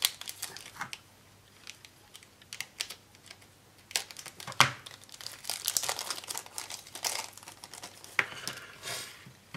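Small plastic parts bag being opened and handled, crinkling in scattered bursts with a few sharp clicks, the loudest about four and a half seconds in.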